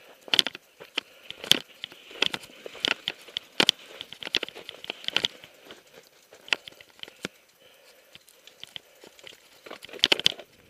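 Mountain bike clattering over a rocky dirt trail: irregular sharp knocks and rattles from the frame and wheels. There is a quieter stretch before a close cluster of knocks near the end.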